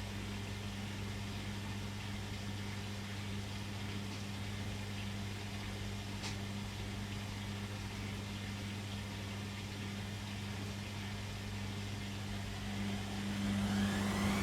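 Beko WM6255W washing machine running with a steady low mains-frequency hum, typical of its drain pump. In the last couple of seconds it grows louder and the drum motor begins to speed up with a rising whine, as the spin starts.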